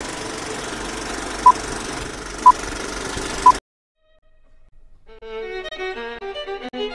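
Film-leader countdown: a steady hiss with three short beeps, one a second, that cuts off suddenly. After a brief silence, violin music begins.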